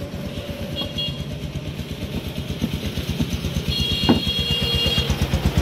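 A small vehicle engine running close by with an even beat, growing louder toward the end. Two short high-pitched tones sound, one about a second in and a longer one around four seconds in.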